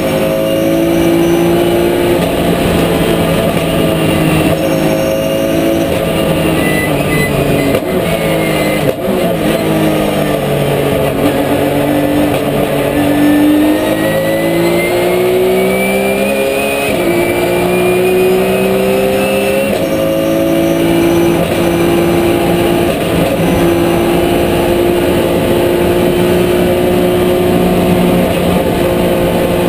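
Porsche 997 GT3 Cup race car's flat-six engine, heard from inside the cockpit, running hard at high revs. The pitch holds mostly level with small steps, drops about eight seconds in, stays low for a few seconds, then climbs back by about seventeen seconds in.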